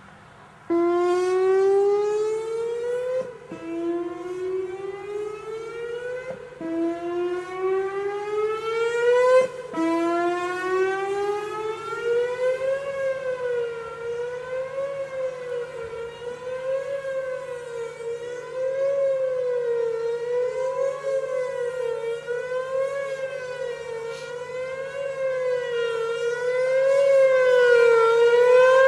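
Whelen 4004 electronic outdoor warning siren sounding a test signal. It starts abruptly with four rising sweeps of about three seconds each, every one cutting off and starting again low. From about ten seconds in it settles into a steady up-and-down wavering tone.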